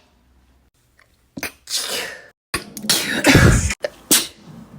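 A person sneezing in a quick series after a second or so of quiet: a short sneeze, then a louder, longer one about three seconds in, and another short one near the end.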